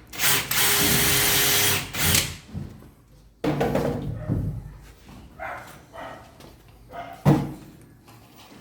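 A power tool runs with a steady whine for about two seconds and stops. It is followed by a sudden clatter a second later and a sharp knock near the end.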